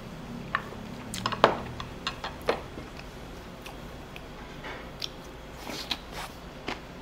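A person eating rice with soybean-paste stew: chewing and soft squishing mouth sounds, with scattered sharp clicks of utensils against dishes, the loudest about a second and a half in. A low hum sounds in the first second or so.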